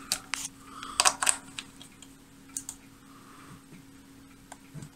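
Clicking of a Voltcraft analogue oscilloscope's rotary switches and buttons as they are turned and pressed. The clicks are scattered, with a quick cluster about a second in, over a steady low hum.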